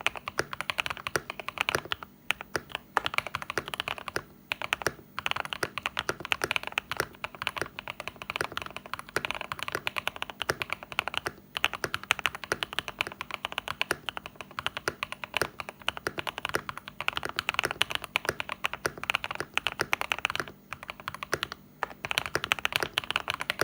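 Mod007 mechanical keyboard with Fantasy Virus switches and ASA BOW keycaps being typed on quickly and steadily, giving a thocky key sound. The runs of keystrokes break off for a few short pauses, including one about two seconds in and a couple more near the end.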